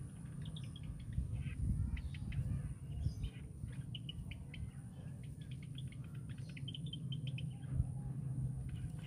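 A small bird chirping in quick runs of short, high notes, thickest in the second half, over a steady low rumble and a faint steady high whine.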